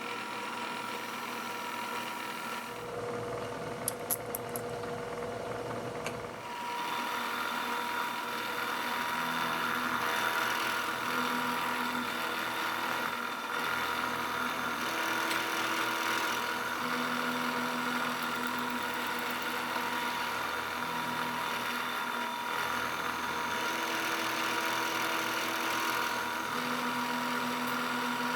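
CNC milling machine taking a light skim cut with a 1/2-inch four-flute end mill while pocketing a part: a steady machine whine, with lower tones that change every second or two as the cut moves. A few clicks come about four seconds in, and the whine settles higher a couple of seconds later.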